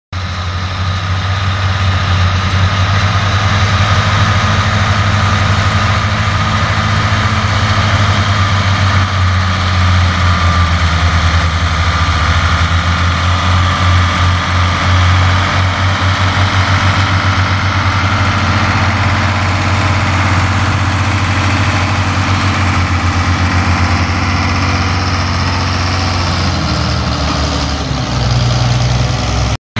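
Farm tractor's diesel engine running steadily under load while pulling a field implement, its note dropping slightly near the end.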